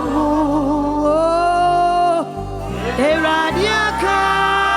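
Gospel worship song: a sung vocal line over steady bass and instruments, with one long held note about a second in.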